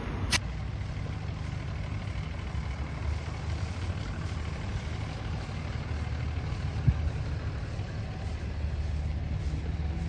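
Steady low rumble of a running vehicle engine, with a sharp click about a third of a second in and a brief thump about seven seconds in.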